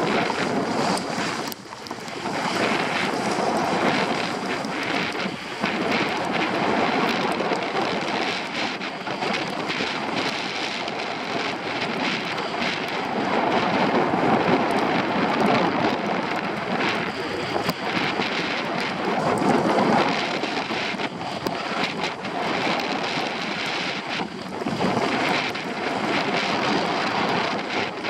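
Wind buffeting the microphone of a camera carried down a ski slope, with skis hissing and scraping over packed snow. A continuous rushing noise that swells and dips, with a brief lull about two seconds in.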